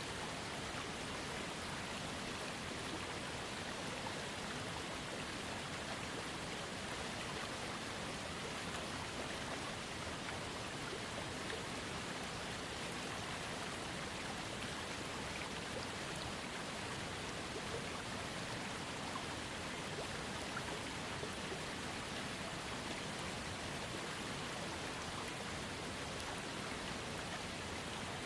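Small waterfall fed by a trickling creek, water splashing and running steadily with no change.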